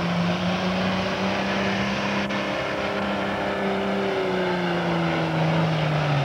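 Diesel engine of a modified farm pulling tractor running steadily at high revs, its pitch sagging slightly over the last couple of seconds, with one brief click about two seconds in.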